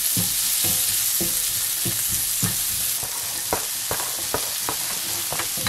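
Chopped green onion, chili and diced onion sizzling in hot oil in a non-stick frying pan, with repeated knocks and scrapes of a spatula and a flat metal scraper stirring the vegetables and pushing them around the pan.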